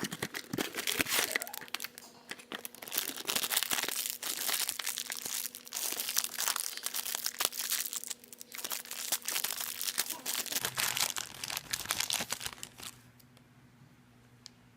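Blind-bag packaging crinkling and tearing as it is handled and opened, in irregular bursts that stop about thirteen seconds in.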